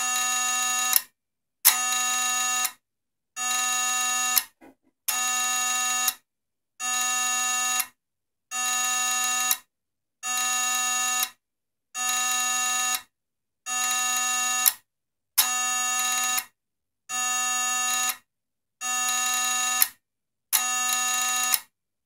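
Failed hard disk drive giving a pitched buzz in pulses of about a second, repeating about every second and a half with short silences between, some pulses starting or ending with a sharp click. Its platters are not spinning, the sign of a logic board failure.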